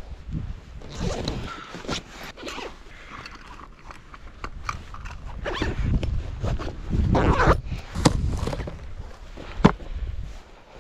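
Camping gear being handled: irregular rustling and scraping, with scattered sharp clicks and a denser run of scraping about seven seconds in.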